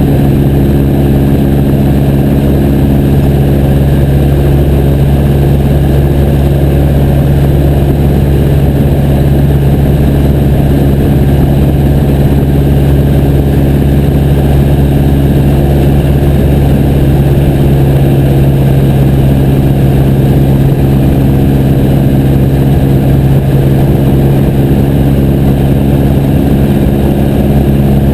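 Piper J3 Cub's engine and propeller running steadily at constant power, a loud unchanging drone with airflow noise.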